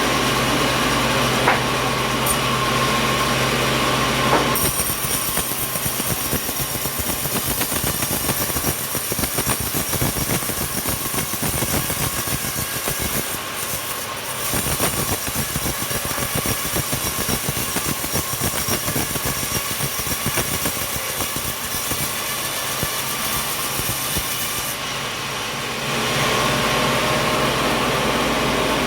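Sawmill saw running with a steady hum; about four seconds in the sound turns to a rough, grainy hiss as the blade cuts through coconut wood, and a few seconds before the end it settles back to the steady hum.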